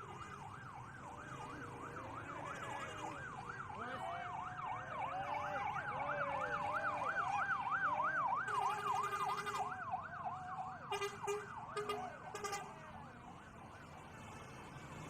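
Basuri telolet bus horn sounding its siren-like 'snaking' warble, the pitch sweeping up and down about four times a second and growing louder toward the middle. Near the end it breaks into short stuttering multi-note blasts, then stops, leaving a low rumble.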